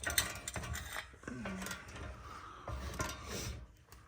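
Metal hand tools clinking and clattering: sockets and extensions knocking together in irregular short clicks while being handled and fitted.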